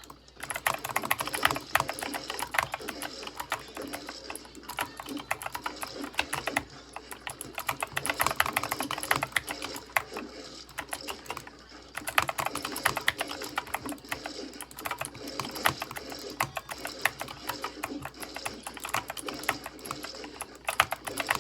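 A computer keyboard being typed on quickly: a dense, continuous clatter of keystrokes. The typing pauses briefly about six and a half seconds in and again around twelve seconds in.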